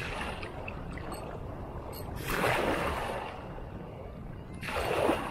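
Small waves washing against the rocks of a groyne: two surges of water, about two seconds in and again near the end, over a steady wash of water and wind.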